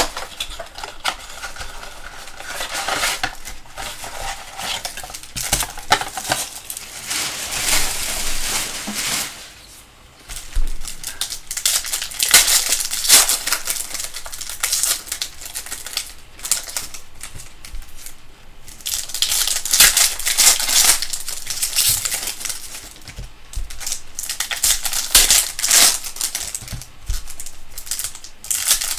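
Plastic wrapping crinkled and torn by hand in irregular rustling bursts, with a brief pause partway through: a trading-card box and its packs being opened.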